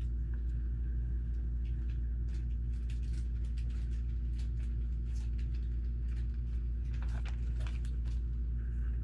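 A steady low hum with scattered light clicks of plastic LEGO pieces being handled and snapped together, most of them a little after the middle.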